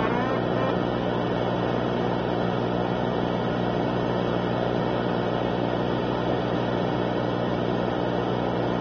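A steady low hum under a hiss of noise, unchanging throughout, with no music or voices.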